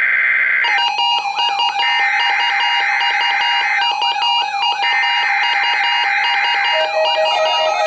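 NOAA Weather Radio SAME header: harsh, buzzing digital data bursts about two seconds long, about a second apart. They mark the start of the Required Weekly Test. The tail of one burst ends under a second in, and two more follow, with music coming in over them about a second in.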